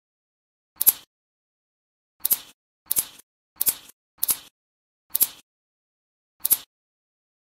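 Small metal magnet balls snapping one at a time onto the edge of a flat sheet of magnet balls: seven sharp clicks at irregular intervals, each a quick double snap.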